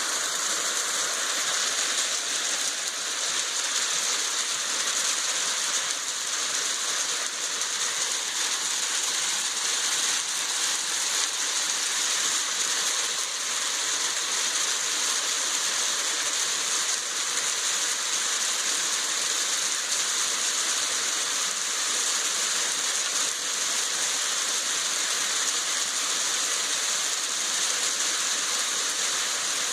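Hailstorm: dense hail falling and striking surfaces in a steady, even hiss.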